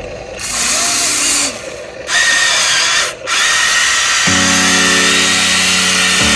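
Small electric motors of a radio-controlled construction model whining in short runs that stop and start, with background music coming in about four seconds in.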